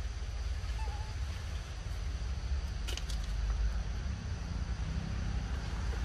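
Outdoor background noise: a steady low rumble with a faint, steady high hum above it. A brief faint chirp comes about a second in, and a single sharp click about three seconds in.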